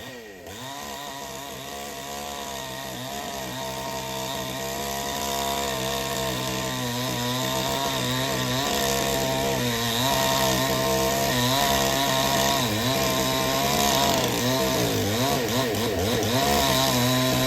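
Chainsaw running and cutting wood, its engine pitch dipping and recovering every second or two as it bogs under the load of the cut. It gets gradually louder.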